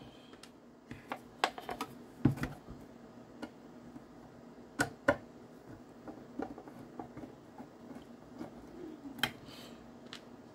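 Scattered sharp clicks and light knocks of a screwdriver and hands on the metal enclosure of a Kantronics KPC3+ packet-radio TNC as its cover is worked loose, with a few louder clicks about two seconds in, around five seconds and near the end.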